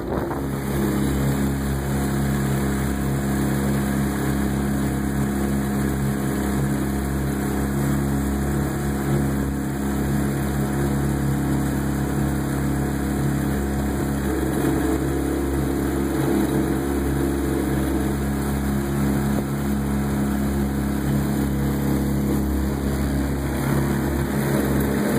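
Small outboard motor running steadily at speed under load, towing a canoe, over the rush of the boat's wake.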